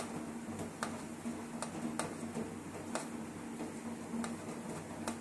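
Light, irregular clicks of fingers and grated coconut against a stainless-steel plate as the coconut is scooped up, about one a second, over a steady low hum.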